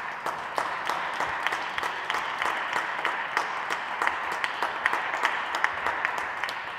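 Audience applauding around the ice rink, a dense patter of hand claps with single sharp claps standing out.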